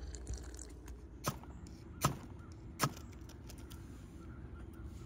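Three sharp clicks or knocks a little under a second apart, the middle one the loudest, over a faint steady outdoor background.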